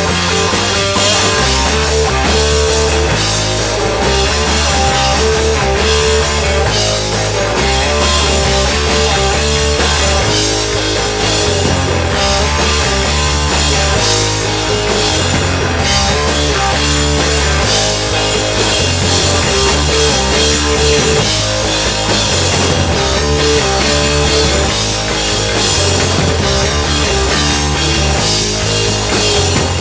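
Rock band playing live: electric guitar, bass and drum kit, with the bass moving between held notes about once a second.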